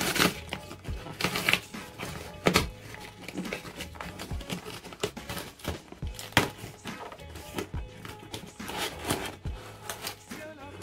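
Plastic courier pouch being pulled open and handled, with irregular crinkles and rips, over background music.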